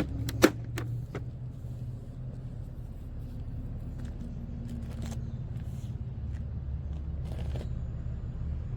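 Steady low rumble of a running vehicle engine, with one sharp click about half a second in and a few faint ticks after.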